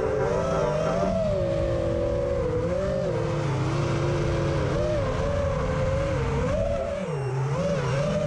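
Emax Hawk 5 FPV quadcopter's brushless motors and 5-inch props whining in flight, the pitch rising and falling continually with throttle. There is a brief dip about seven seconds in.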